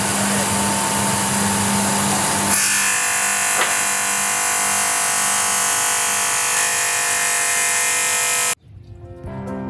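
CNC 45-degree stone edge grinding and chamfering machine running, its grinding wheels working the edge of a sintered stone or porcelain tile slab with a steady, loud grinding noise and hum. The sound changes abruptly once, about two and a half seconds in, and cuts off suddenly near the end, giving way to background music.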